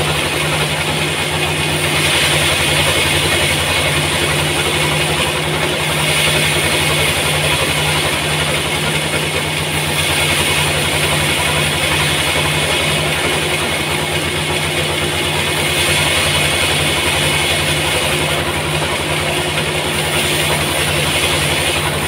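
Large band sawmill running as it cuts lengthwise through a wide trembesi (rain tree) log: a steady deep machine hum with a higher hiss from the cut that swells and fades every few seconds.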